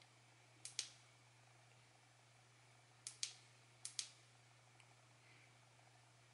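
Push-button switch on a Mactronic Noise XTR 03 bicycle headlight clicking three times, each press a quick double click of press and release, as the light steps through its brightness modes.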